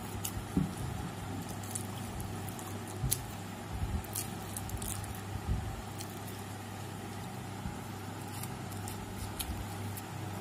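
Eating by hand: fingers working biryani rice and meat on ceramic plates, with scattered small clicks and taps. Under it runs a steady low hum.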